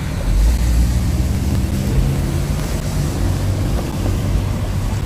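A motor vehicle's engine running in street traffic: a steady low rumble.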